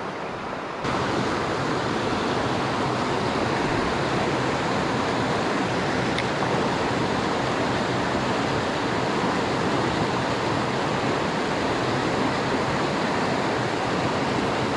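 Mountain stream rushing over rocks and a small cascade, a steady rush of water that gets louder about a second in.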